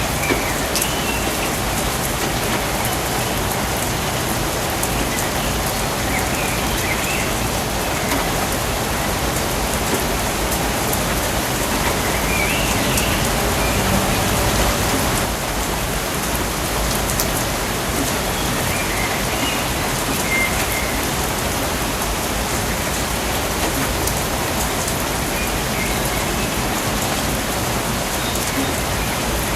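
Steady rain falling in a rainforest, an even hiss of drops, with faint high chirping calls every several seconds.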